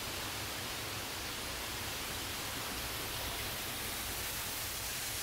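Waterfall rushing steadily: an even hiss of falling water.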